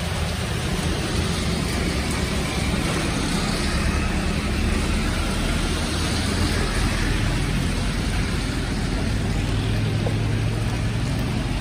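Heavy monsoon rain falling steadily onto a flooded road, mixed with the hiss of traffic. A motorbike engine hums as it passes through the water near the end.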